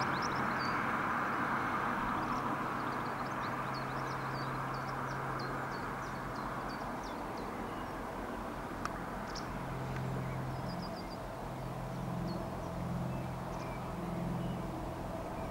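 Class 56 diesel locomotive 56094 approaching in the distance with a ballast train, its engine a steady low drone that builds a little towards the end. Birds chirp throughout.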